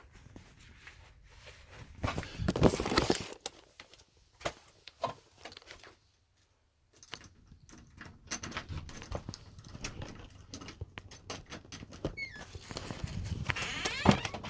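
Scattered rustling, scraping and clicking handling noises from someone moving about and handling things, loudest a couple of seconds in. The sound drops out completely for about a second midway.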